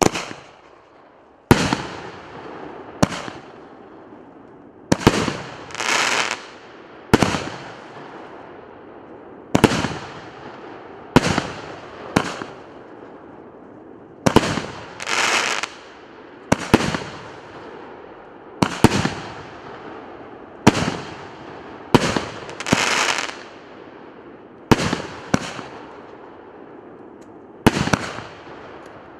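RS 931 firework battery firing shot after shot: a sharp bang every one to two seconds, several of them followed by about a second of crackling.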